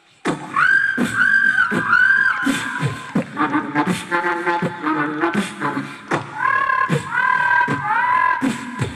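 A boy beatboxing into a microphone through a stage PA. Sharp low kick-drum thumps and clicks come under short groups of held, whooping high tones that slide up and down. It starts a moment in, after a brief pause.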